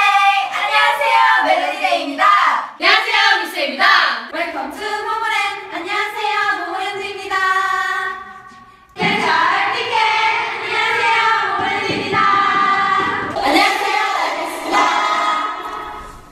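Young women's voices chanting together in unison, sing-song with drawn-out notes. The sound drops out briefly about eight and a half seconds in, then a second group starts chanting together.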